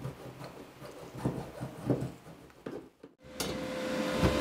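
Irregular knocks and rubbing from hands-on work on a truck's cab floor, around the floor shifters and sound-deadening mat. After a sudden break about three seconds in, a steady hum with a thin high tone starts and carries on.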